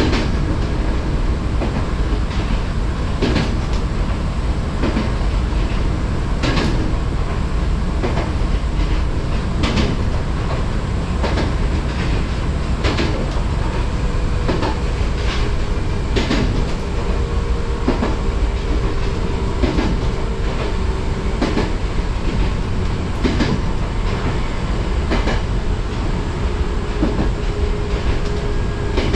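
Fujikyuko Line electric train running along the track, heard from on board: a steady low rumble with wheels clacking over rail joints about every second and a half. A faint humming tone comes in for several seconds midway.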